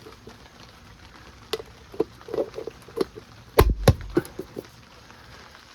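Scattered metal clinks and knocks, some with a brief ring, and two heavy thumps just past halfway, as the wheel is handled and fitted back onto the hub.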